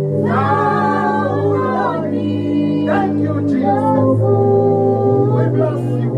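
Worship singing: a voice holding long, wavering notes over steady sustained chords.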